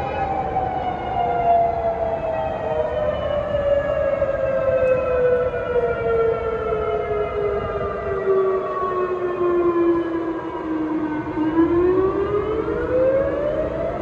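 Outdoor tornado warning siren wailing. Its pitch falls slowly for about eleven seconds, then starts to rise again near the end.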